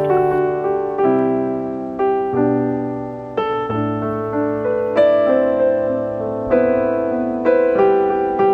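Background piano music: slow single notes and chords, each struck and left to ring and fade.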